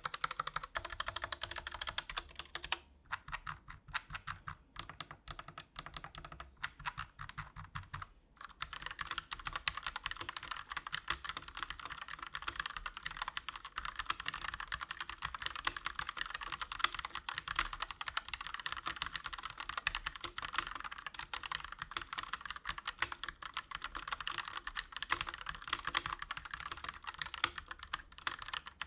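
Continuous fast typing on a Koodo Beast Pro mechanical keyboard with Gateron Red linear switches: a dense clatter of keystrokes. From about three to eight seconds in the keystrokes sound duller, then the bright clatter returns.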